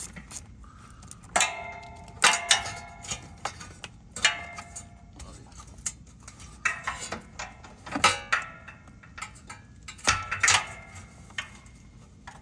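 Stubby ratchet clicking in several short bursts as it loosens a hose clamp on a charge-pipe hose, with light metallic clinks.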